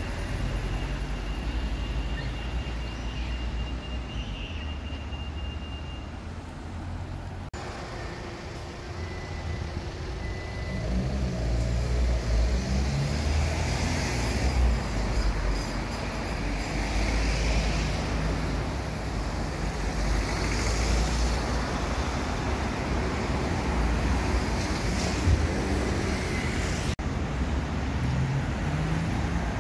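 Road traffic passing on a busy street: a steady low rumble of cars and heavier vehicles that swells and fades as they go by. The sound changes abruptly twice, about a third of the way in and near the end.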